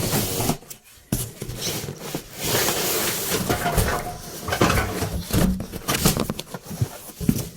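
Packaging being pulled off a new washing machine: cardboard and plastic rustling, scraping and knocking in irregular bursts.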